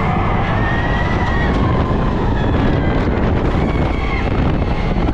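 Wind buffeting the microphone of a fast-moving open ride car, with the rumble of the car running along its track.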